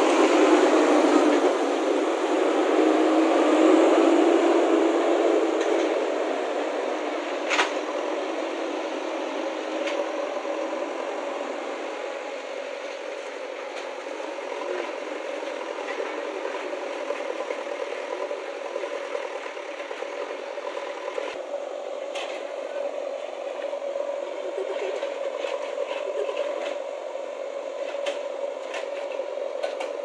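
JCB backhoe loader's diesel engine running: loud for the first few seconds, then fainter with a steady hum. A single sharp knock comes about seven seconds in, and light clicks follow near the end.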